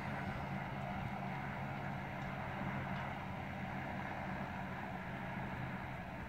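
Diesel engine of a Massey Ferguson 375 tractor pulling a plough, a steady drone from a distance. The drone fades near the end as the tractor moves off down the field.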